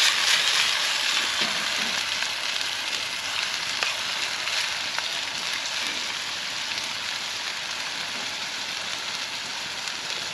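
Chicken bites sizzling as they fry over a campfire: a steady, dense hiss that is loudest at the start and eases off a little.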